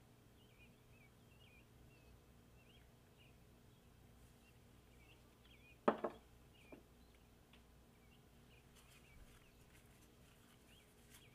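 Faint birds chirping in the background, with a sharp double knock about six seconds in and a softer tap shortly after.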